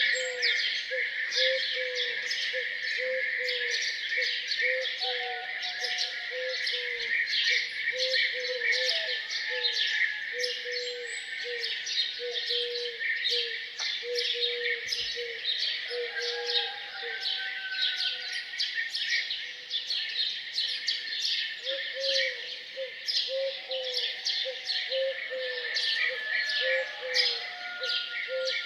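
A dawn chorus of many small birds singing and chirping together in a dense, overlapping twitter. Under it a single lower note is repeated steadily, a little more than once a second, stopping for several seconds midway and then starting again.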